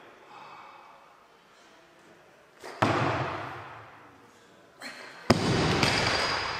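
Loaded Olympic barbell with Eleiko rubber bumper plates dropped from overhead onto a wooden weightlifting platform a little past five seconds in: the loudest event, a heavy thud with a rebound, echoing in the hall. About three seconds in comes an earlier sharp thud as the lifter jerks the bar overhead and her feet stamp down on the platform.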